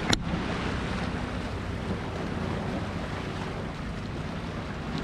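Small waves washing and lapping against a rock wall, with wind on the microphone. Under it runs a low steady engine drone, and there is a single sharp click just after the start.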